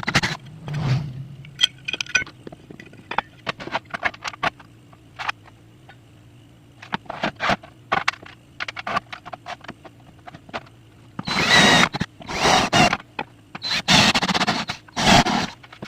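Hand work on an amplifier box: many small clicks and knocks of metal parts and bolts being handled. Near the end come two loud bursts of a power tool, each lasting about a second.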